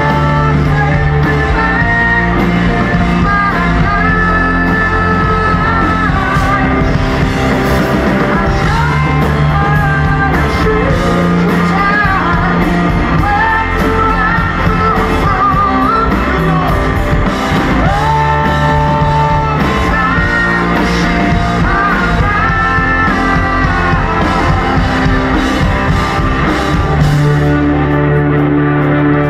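Rock power trio playing live: electric guitar, bass guitar and drums under a sung lead vocal. The vocal drops out near the end while the band plays on.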